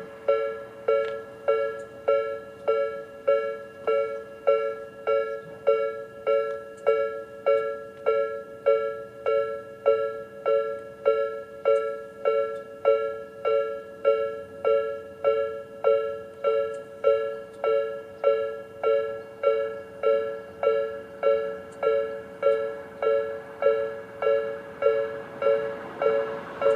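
Japanese railway level-crossing warning bells (Tobu 'sound B', slow-tempo type) sounding from both sides: an electronic ding-ding tone repeating steadily, about one and a half strikes a second. It signals that the crossing is closed for an approaching train.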